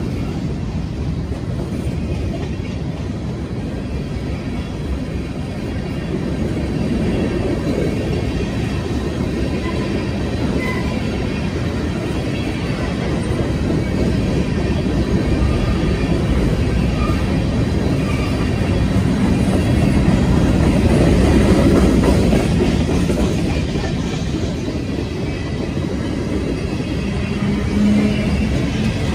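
Freight cars of a CSX train (boxcars, covered hoppers and coil-steel cars) rolling past close by: steady noise of steel wheels running on the rails, swelling a little about two-thirds of the way through.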